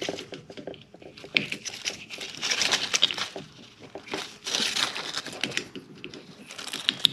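Plastic cowl trim and push-pin clips being pried and pulled loose by hand: irregular crinkling and crackling of flexing plastic with scattered small clicks.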